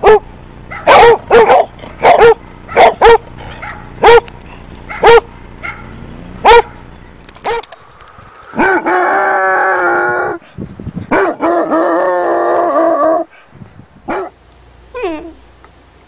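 Basset hounds barking and howling. A run of about nine sharp, loud barks fills the first seven seconds. Then a dog gives two long howls of about two seconds each, and a few fainter short barks follow near the end.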